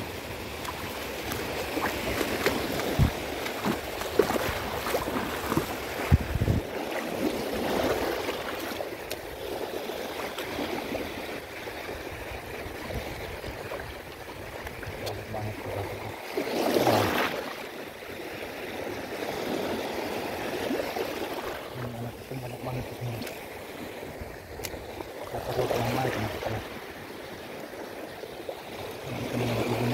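Small waves washing in over shallow water at the shoreline, a steady rushing that swells every eight or nine seconds, with a couple of sharp knocks a few seconds in.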